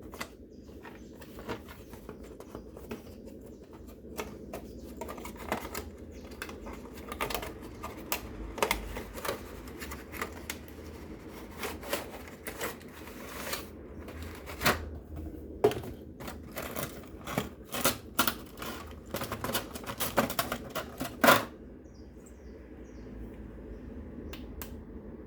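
A box being unpacked by hand: irregular clicks, taps and rustles of cardboard and plastic packaging that stop about four seconds before the end, over a steady low hum.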